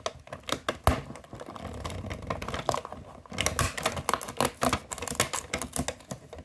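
Cardboard door of a LEGO advent calendar being pried open and its contents handled: a fast, uneven run of sharp clicks and crackles, thickest in the second half.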